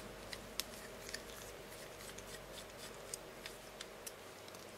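Small sharp clicks and taps, about ten scattered irregularly, of tools and small metal parts being handled while a spinning fishing reel is taken apart.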